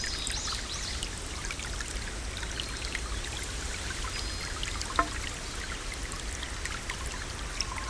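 Waterfall: water pouring and splashing steadily, with a single sharp click about five seconds in.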